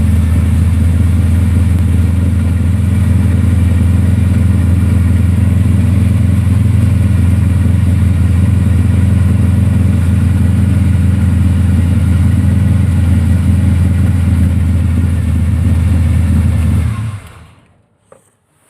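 Car engine idling steadily and loudly, then switched off about seventeen seconds in, the sound dying away within about a second.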